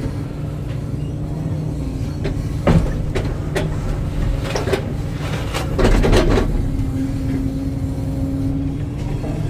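Hitachi excavator's diesel engine running steadily, with a few sharp knocks and clanks from the machine's work about a third and two thirds of the way in.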